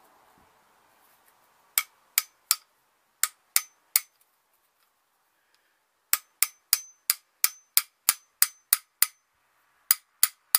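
Hammer tapping a steel ARP rod bolt into a Classic Mini 1310cc engine's lightened connecting rod. Sharp metallic taps, some with a brief ring: two short groups of three, then a run of about ten at roughly three a second, then three more near the end.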